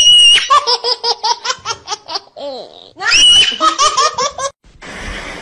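High-pitched human laughter in two bouts, each opening with a shrill squeal and running on in quick rhythmic peals. Near the end a steady hiss takes over.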